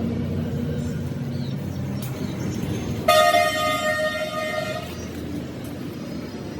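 A vehicle horn honks once, a flat steady note lasting nearly two seconds, over a continuous low rumble of traffic.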